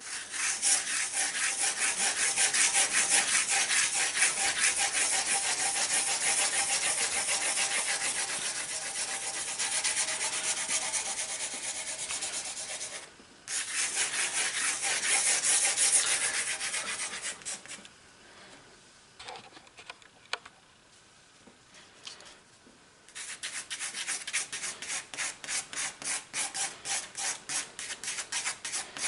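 Pencil scribbling rapidly on sketchbook paper in fast looping circular strokes, a dry scratching hiss made of quick repeated strokes. It breaks off briefly a little before the middle and goes quiet for several seconds past the middle, then comes back with distinct, regular strokes.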